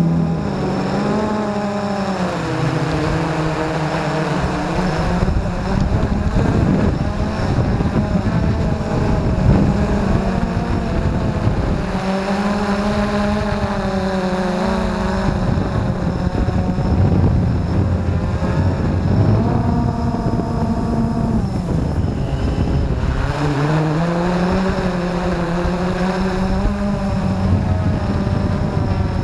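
Blade 350 QX2 quadcopter's brushless motors and propellers whirring, heard close from the camera on the drone itself. The pitch rises and falls again and again as the throttle changes, with a marked drop and climb about three quarters through.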